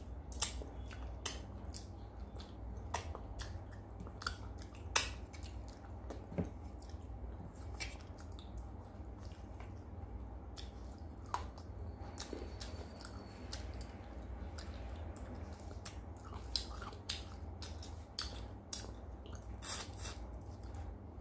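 Close-miked chewing of hand-fed mouthfuls of fish, with wet lip smacks and irregular sharp mouth clicks over a low, steady hum.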